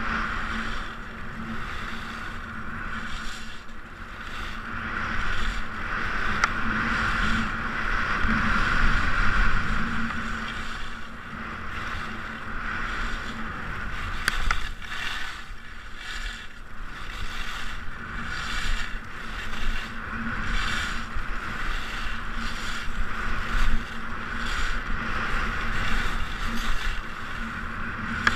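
Skis scraping and carving on hard-packed groomed snow during a fast descent, the noise coming in repeated surges, with wind rushing over the onboard camera's microphone.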